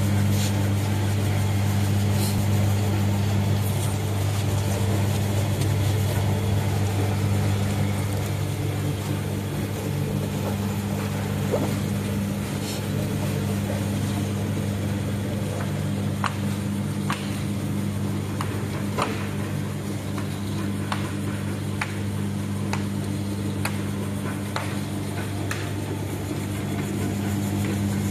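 Pancake forming machine running, its electric drive giving a steady low hum, with scattered light clicks from about halfway through.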